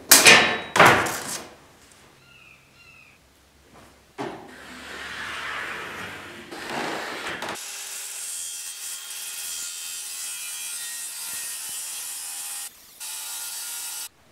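Two quick brush strokes sweeping dust off a particleboard panel, then a DeWalt circular saw cutting through white melamine-faced particleboard. The cut is a steady rasping noise from about four seconds in, with a brief break, and it stops suddenly near the end.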